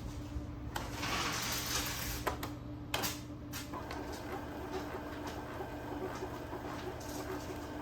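Epson L6290 inkjet printer running with a steady hum, overlaid about a second in by rustling handling noise and a couple of clicks, then a faint regular ticking.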